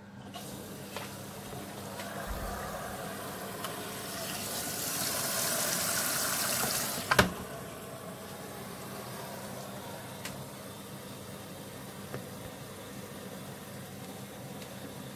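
Miele W1 WKF 130 WPS PowerWash washing machine taking in water: a rushing hiss builds over several seconds, then stops abruptly with a sharp click a little past the middle, leaving a quieter steady hiss.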